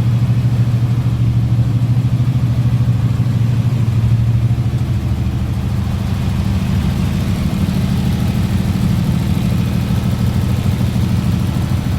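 An engine idling steadily, its speed rising slightly about five seconds in and then holding.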